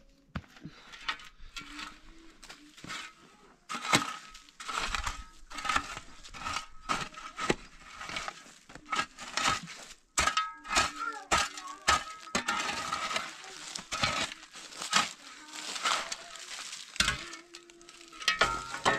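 Irregular clicks, knocks and crinkling, the sound of things being handled close by, with brief bits of a voice.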